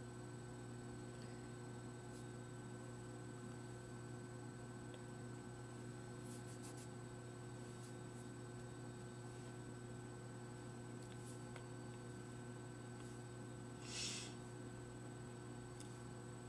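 Steady low electrical hum with a few faint clicks, and one brief soft hiss about fourteen seconds in.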